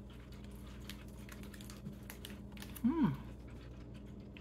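Faint small clicks and crinkles of a foil snack-cake wrapper being handled while a bite of cake is taken and chewed, with one short hummed 'mm' about three seconds in that rises and then falls in pitch.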